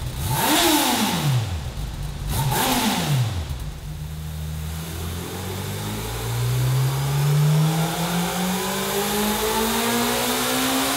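Honda CBR600RR inline-four engine revved twice in quick blips, then pulling steadily up through the rev range with the pitch climbing smoothly, as in a wide-open-throttle dyno run.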